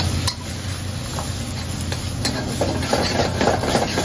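Chicken, garlic and onion sizzling in a wok over a gas burner while a metal spoon stirs and scrapes against the pan, with a few sharp clicks and denser crackling in the second half. A steady low hum runs underneath.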